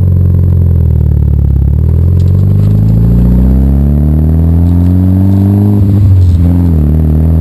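Mitsubishi Lancer Evolution IX's turbocharged 4G63 four-cylinder engine accelerating hard, its pitch climbing steadily, then breaking up roughly and dipping about six seconds in before climbing again. The break-up fits the full-throttle misfire this engine has, which was later traced to failing ignition coils.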